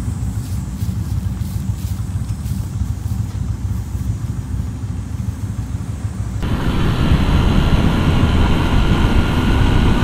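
Motorcycle engine running at low revs, a steady low rumble. About six seconds in it cuts sharply to a Honda motorcycle under way, with louder engine and road noise.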